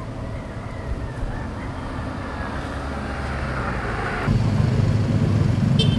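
Road traffic: vehicle engines running, growing louder and then jumping sharply louder about four seconds in.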